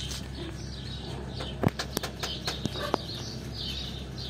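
A run of sharp knocks on a house door, about six of them from a couple of seconds in, with small birds chirping.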